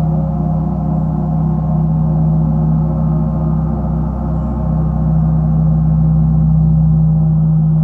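Large gong played continuously with soft mallets, building a steady sustained drone with a strong low hum and many shimmering overtones, with no single strike standing out; it swells slightly about five seconds in.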